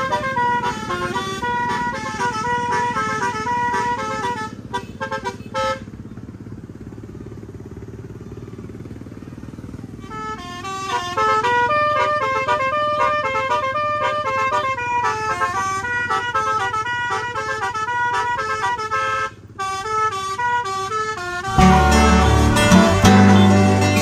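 A bus's basuri telolet air-horn module playing a tune in quick stepped horn notes over a steady low rumble. The horns pause for about four seconds, leaving only the rumble, then resume. Near the end, loud strummed guitar music cuts in.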